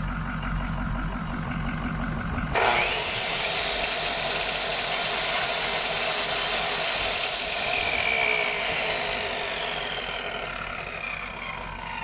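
Corded electric chop saw starting suddenly about two and a half seconds in, running at full speed with a steady whine for about five seconds, then winding down with a falling pitch. A diesel truck engine idles underneath.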